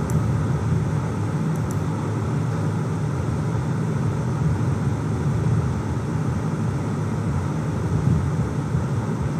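Steady low rumbling background noise of a room, even and unchanging, with no speech.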